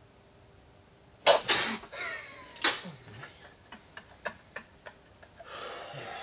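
A sudden loud startled yell about a second in, then laughter that trails into short, sharp breathy bursts and gasps.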